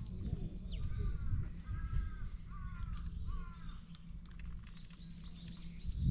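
A crow cawing four times in quick succession, over a steady low rumble.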